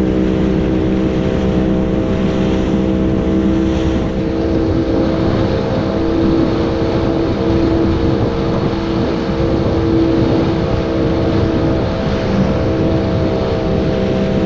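Outboard motor of a small open fiberglass boat running steadily at speed, with the rush of water from the wake.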